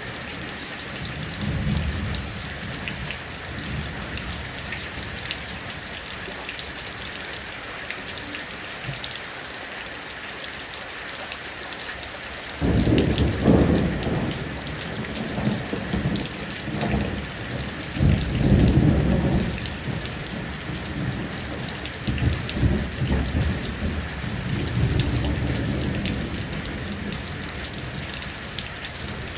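Heavy rain falling steadily, with thunder. A low rumble of thunder breaks in suddenly about halfway through and rolls on in several swells for over ten seconds, with a fainter rumble near the start.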